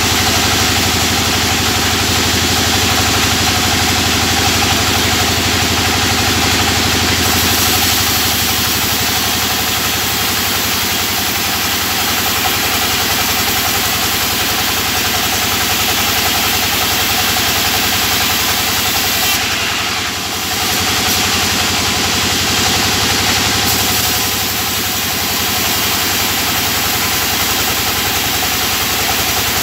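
Sawmill machine running and cutting a wooden board lengthwise into thin planks. It is a steady, loud machine drone that dips briefly about two-thirds of the way through.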